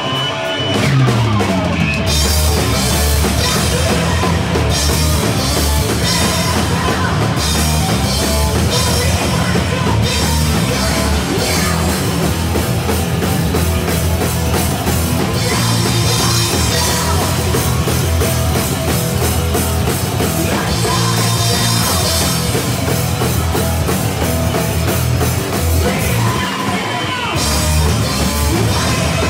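A rock band playing live at full volume: electric guitar, bass and a drum kit with cymbals, with the drums coming in with the guitar about two seconds in.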